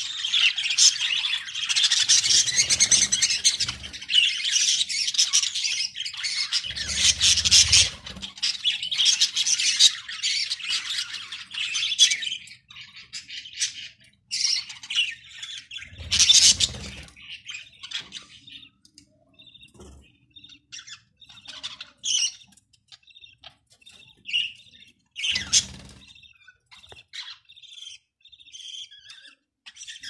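A flock of budgerigars chattering, with high chirps and squawks. The chatter is dense for about the first twelve seconds, then thins to scattered chirps. A few brief low flutters come in between, one as a budgie flaps past.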